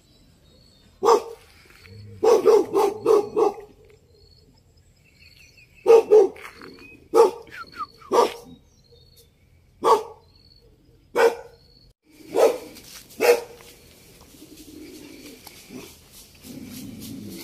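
A dog barking repeatedly, about a dozen short barks: single ones a second or so apart and a quick run of about five. The barking stops a few seconds before the end.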